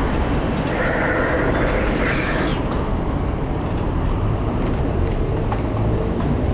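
Steady rushing road and wind noise from riding a bicycle on a street, wind buffeting the action camera's microphone. There is a brief higher-pitched sound for about two seconds near the start.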